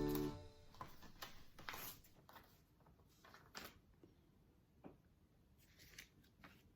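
Background music dies away in the first half-second, leaving near silence with a few faint, scattered clicks and taps.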